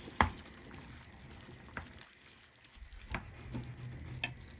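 Curry sauce simmering in a small saucepan as it is stirred, with a few sharp clinks of a utensil against the pan, the loudest about a quarter second in.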